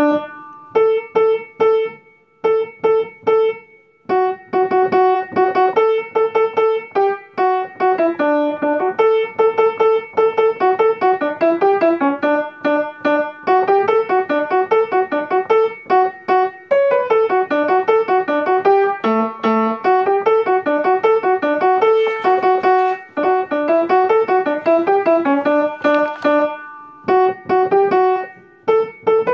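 Upright piano playing a single-line alto part of a choral arrangement, one note at a time in quick, detached notes, with a few short pauses between phrases near the start.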